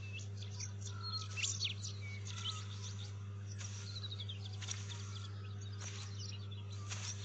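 Birds chirping and calling: scattered short chirps and whistles, with a quick run of descending notes about four seconds in, over a steady low hum.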